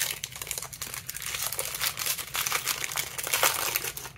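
Foil wrapper of a Pokémon Brilliant Stars booster pack being torn open and crinkled by hand as the cards are pulled out: a dense run of crackles and rustles.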